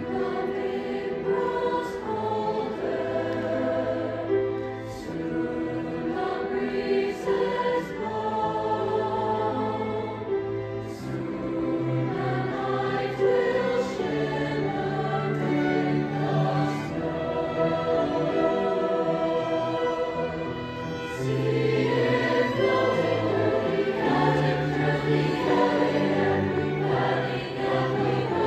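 Mixed choir of male and female voices singing a slow piece, accompanied by grand piano and cello, growing louder about two-thirds of the way through.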